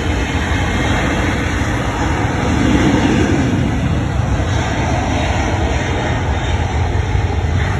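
Steady jet-engine rush of an Airbus A330 twin-jet moving along the runway, with a deep rumble underneath, swelling briefly about three seconds in.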